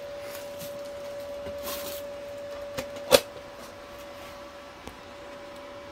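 A new welding helmet being handled: a brief rustle about one and a half seconds in and a single sharp click about three seconds in, the loudest sound, over a steady low hum.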